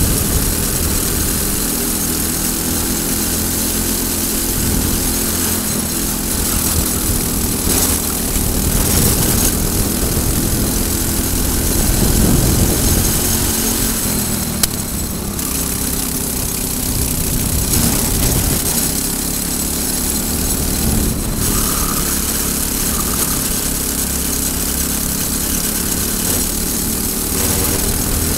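Briggs & Stratton four-stroke single-cylinder kart engine running at racing speed, its pitch rising and falling as the driver goes on and off the throttle through the corners.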